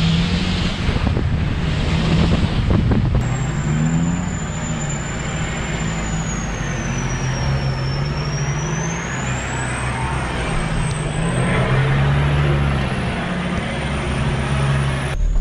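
A four-wheel drive's engine running at low revs as the vehicle crawls along a muddy dirt track, with a steady hum over rumbling tyre and body noise.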